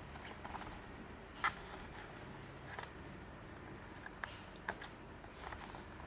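Scattered light clicks and ticks of packaging being handled during an unboxing, the sharpest about one and a half seconds in, over a low steady hum.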